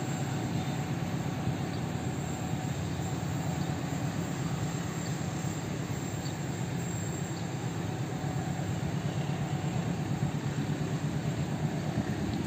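Locomotive-hauled passenger train running past: a steady low rumble of its wheels on the rails, unbroken throughout.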